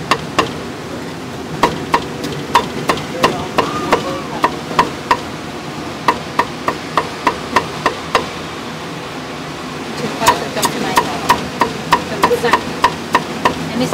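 Meat cleaver chopping roasted meat on a thick round wooden chopping block: sharp chops at about three a second, with a pause of about two seconds past the middle.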